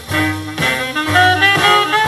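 Jazz with saxophone and brass over a steady bass line, played from a vinyl record on an Elac Miracord 50H II turntable.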